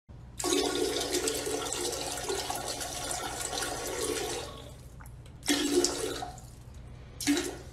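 Toilet flushing: a loud rush of water lasting about four seconds, followed by two shorter gushes.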